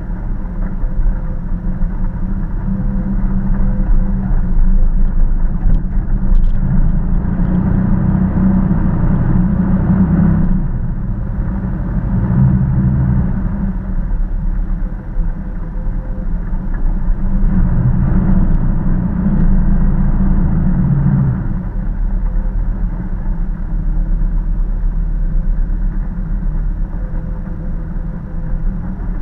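Jeep Wrangler engine running as it drives over sandy off-road mounds, mostly low-pitched. It grows louder under throttle twice, about eight to ten seconds in and again around eighteen to twenty-one seconds.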